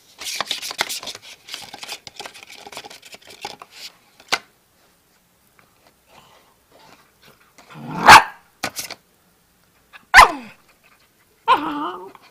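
Puppy barking: two loud, sharp barks about two seconds apart in the second half, then a short pitched vocal sound near the end, after a few seconds of rustling at the start.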